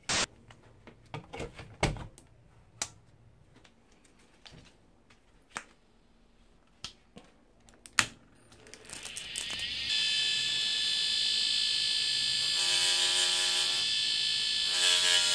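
A few light handling clicks, then the click of a power-supply switch. A hard-drive spindle motor then spins up with a rising whine and settles into a steady high whine. From about halfway through, a metal rod pressed against the spinning disc adds a wavering grinding ring as the rod is ground down into a flat-blade screwdriver tip.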